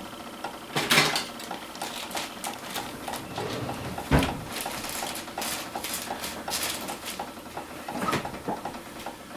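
Kitchen clatter of dishes and utensils being handled and put away: scattered light clinks and knocks, with one heavier knock about four seconds in.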